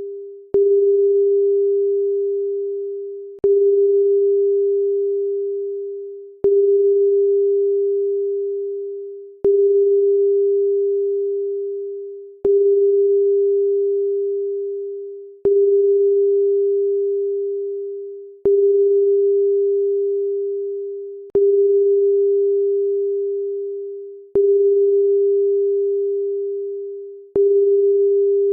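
A pure electronic tone, a single mid-low note, sounding again with a sharp click about every three seconds and fading out each time before the next one starts.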